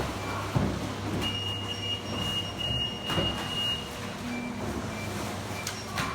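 A steady high-pitched electronic beep, held for about two and a half seconds, over a background of low machine hum and scattered clicks.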